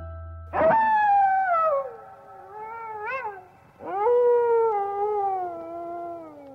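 A wolf howl: two long calls that fall in pitch, the first wavering near its end and the second starting about four seconds in and sliding down as it fades.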